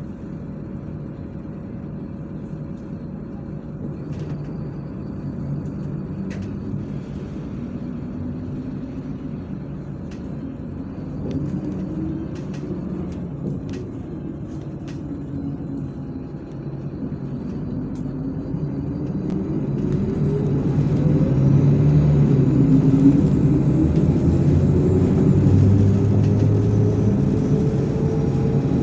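MAZ-103 city bus engine and drivetrain rumbling, heard from inside the bus. About two-thirds of the way in it pulls away or accelerates with a rising whine and grows louder, with a few faint rattling clicks before that.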